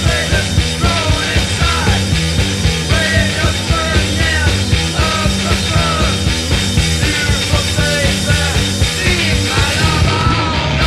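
Loud rock music with a steady beat.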